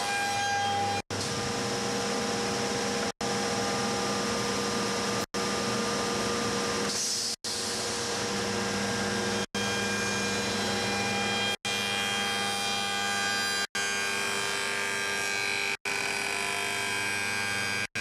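Hauncher notching machine running with a steady, many-toned hum from its motor and cutter heads while a stack of beehive box boards is fed in, with a short hiss about seven seconds in. The sound cuts out for an instant about every two seconds.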